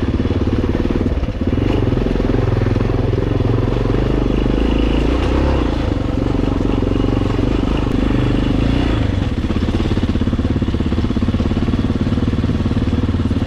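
Yamaha XT 600's single-cylinder four-stroke engine running steadily at an even speed.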